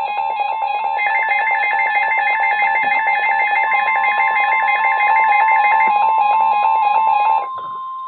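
Weather radio alert: a receiver's electronic alarm beeping in a fast repeating pattern, with the NOAA Weather Radio warning alarm tone, one steady high tone, joining about a second in. The beeping stops near the end while the steady tone holds on.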